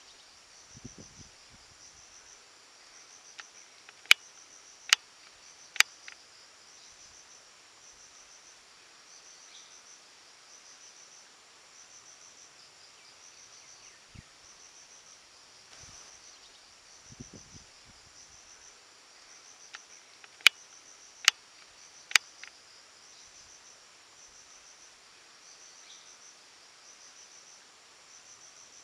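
Insects chirping in a high, steady, evenly repeating pulse. Twice a run of three loud, sharp clicks about a second apart cuts through it, the loudest sounds present.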